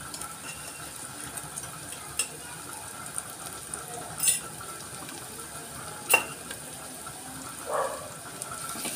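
Chopped onions, curry leaves and green chillies sizzling steadily in hot oil in a pot, with three sharp clinks of a spoon on the jar and pot as salt is added, about two, four and six seconds in; the pot is stirred near the end.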